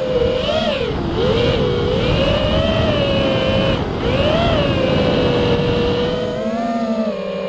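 FPV quadcopter's BotGrinder brushless motors and propellers whining, the pitch swinging up and down with throttle changes over a steady rush of prop noise.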